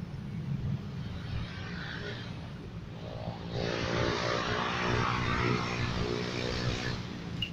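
Wind buffeting the microphone as a constant low rumble. About halfway through, a steady engine hum with a rushing noise swells for a few seconds and then fades.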